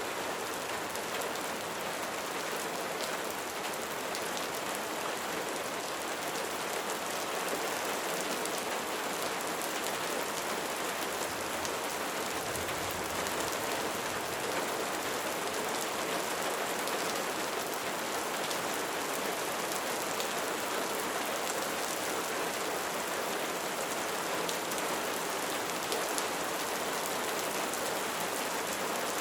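Light rain falling steadily: an even hiss of raindrops with faint individual drop ticks.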